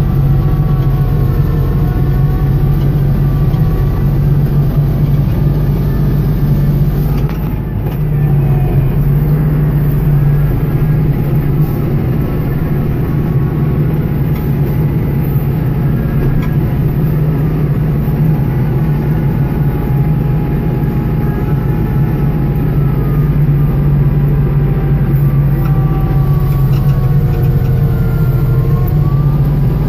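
Kubota L3540 tractor's diesel engine running steadily under load, driving a front-mounted snowblower that is throwing snow, with a brief small dip about seven to eight seconds in. Heard from inside the tractor cab.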